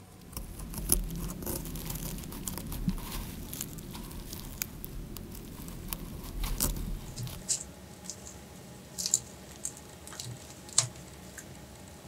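Close-up crackling and tearing of a lime's peel as it is cut with a nail clipper and pulled away from the flesh, with a scatter of sharp clicks and snaps. It is busiest in the first half, then thins to occasional snaps.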